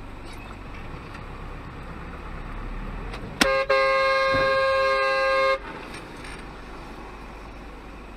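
A vehicle horn blares for about two seconds, with a brief break just after it starts, as a car collides in front of the camera vehicle; it begins with a sudden sharp knock. Steady road and engine noise runs underneath.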